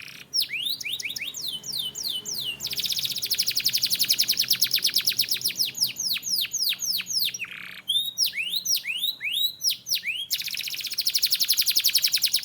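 Canary singing: series of descending whistled notes, a few per second, broken by long, very fast trills, one starting about three seconds in and another near the end.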